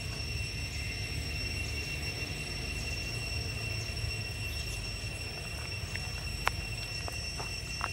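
Outdoor ambience: a steady high-pitched tone over a low rumble, with one sharp click about six and a half seconds in.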